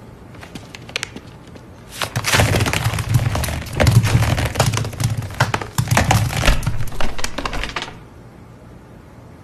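Dozens of lemons spilling from a paper bag and bouncing on a hard floor: a dense clatter of quick knocks that starts about two seconds in and stops suddenly near the end.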